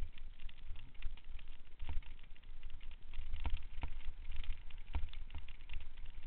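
Bicycle rattling and knocking over a rough dirt trail, with a stream of small clicks and several sharper knocks over a steady low rumble.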